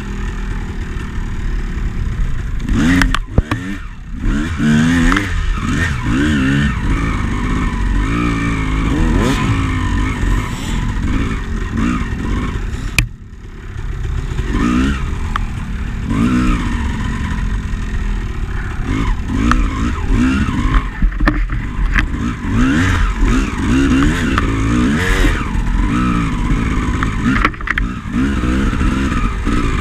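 Two-stroke enduro dirt bike engine revving up and down over and over under hard throttle, with clattering and scraping from the bike over rough ground. About halfway through the throttle closes briefly and the level drops, then the revving picks up again.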